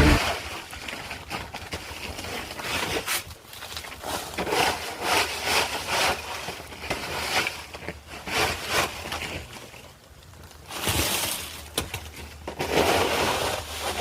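Ice-crusted snow crunching and cracking in a run of irregular strokes, about one or two a second, with longer rasping stretches near the end.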